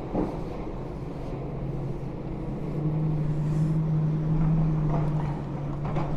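Demolition digger's diesel engine running steadily, its hum rising in pitch and getting louder about two and a half seconds in as the machine works clearing up rubbish.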